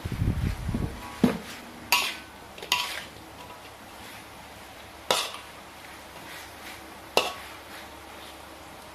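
A metal spoon stirring and scraping thick sambal and meat in a metal wok. It clinks sharply against the wok about five times, the first about a second in.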